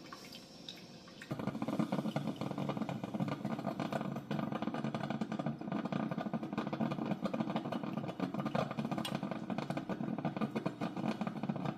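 Mr. Coffee 12-cup drip coffee maker brewing: a steady, crackling rumble that starts suddenly about a second in.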